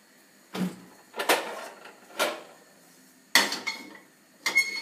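Pots and pans knocking on a gas hob as a frying pan is set on the burner: about five separate sharp knocks of metal cookware, the last near the end with a short metallic ring.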